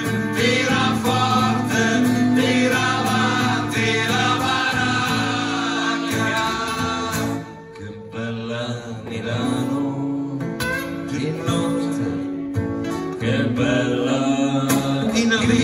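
Live acoustic band: strummed acoustic guitars with male voices singing into microphones. The music drops briefly about eight seconds in, then carries on.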